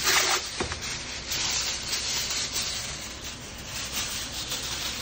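Aluminum foil crinkling and rustling as it is handled and shaped, in uneven scrunching bursts.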